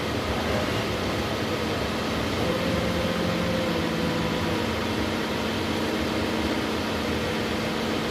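An engine running steadily with a constant hum, joined by a second, higher humming tone from about two and a half to four and a half seconds in.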